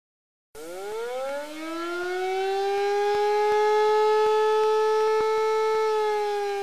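Air-raid siren starting up about half a second in: its wail rises in pitch, holds steady and loud, then begins to sink near the end.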